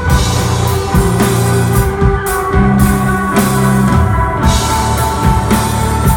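Rock band playing live: drum kit with regular cymbal hits, electric guitar holding long sustained notes, and a moving bass line.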